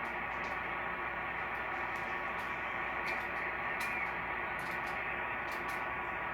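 Static hiss from a portable software-defined radio receiver tuned to 11-meter CB sideband, heard through its speaker. It is a steady hiss cut off above about 3 kHz, with faint steady tones from nearby stations bleeding onto the frequency.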